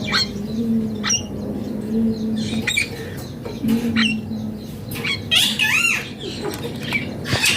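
Green ringneck parrot (rose-ringed parakeet) giving short, sharp squawks and chirps, with a few quick swooping calls about five and a half seconds in, over a steady low hum.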